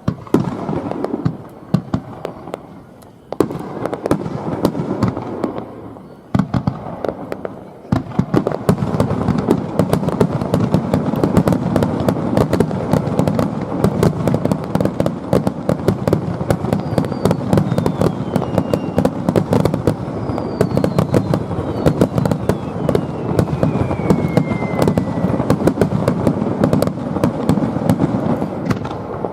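Aerial fireworks display: a few separate shell bursts at first, then about eight seconds in a dense, continuous barrage of bangs and crackling that runs on to the end, with several whistling shells falling in pitch partway through.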